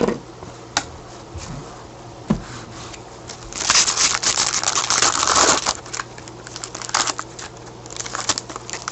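Crinkling and tearing of a trading-card pack's foil wrapper, loudest for a couple of seconds in the middle, with scattered clicks of cards being handled before and after.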